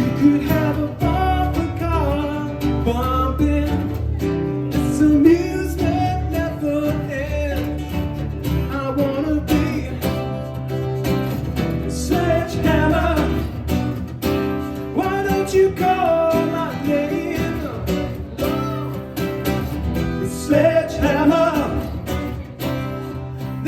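Band music: guitar and a steady bass line under a wavering lead melody line.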